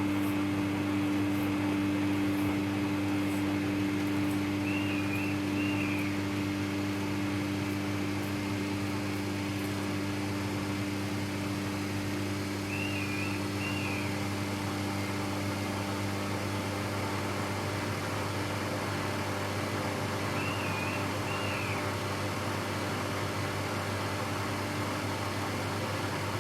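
Samsung EcoBubble front-load washing machine running a cotton wash cycle: a steady motor hum that eases slightly about six seconds in. A short high two-part chirp repeats about every eight seconds.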